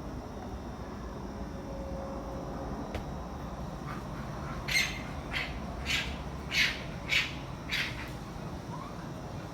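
An unidentified night animal giving about six short, harsh, raspy calls in quick succession, a little under two a second, starting about halfway in. A steady low rumble runs underneath.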